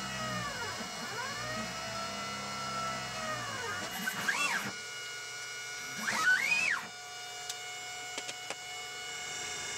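Stepper motors of a hobby CNC machine whining as they drive the pyrography pen along its burn path, the pitch rising and falling with each short move. About four and six seconds in come two louder, quicker moves that sweep up and down in pitch as the head lifts and travels away, followed by a steady hum with a few faint clicks.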